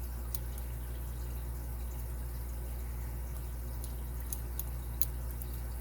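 Lock pick working the pins inside a padlock: a few faint, light metallic ticks, one shortly after the start and three close together near the end, over a steady low hum.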